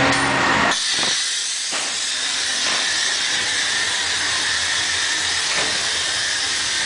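A loud sound with a low steady hum cuts off abruptly about a second in, leaving a steady hiss of open-air fairground noise.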